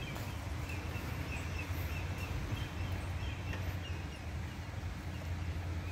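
Outdoor ambience: a steady low rumble, with faint short bird chirps scattered through the first few seconds.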